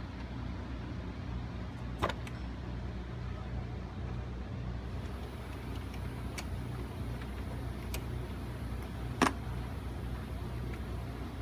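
Steady low machine hum with a few short, sharp metallic clicks and taps, the loudest about nine seconds in: hand tools working on an alternator's mounting and cable terminal.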